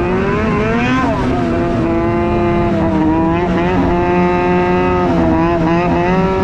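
Arctic Cat M8000 snowmobile's C-TEC2 800 two-stroke twin, breathing through an aftermarket NPP exhaust, running under way on the throttle. Its pitch climbs about a second in, holds steady, then dips slightly and climbs again near the end.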